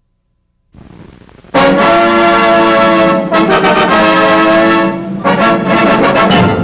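Orchestral opening music led by brass, entering loudly with held chords about a second and a half in, after a moment of silence and a short stretch of faint hiss.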